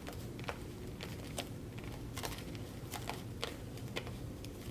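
Tarot cards being leafed through by hand in a search of the deck: scattered light flicks and taps at an irregular pace, over a low steady room hum.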